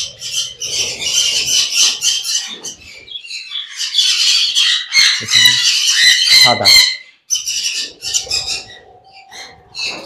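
A flock of caged budgerigars, Hagoromo (frizzled-feather) budgies, chattering and warbling continuously, with a few louder squawks cutting in around the middle. The chatter thins out over the last few seconds.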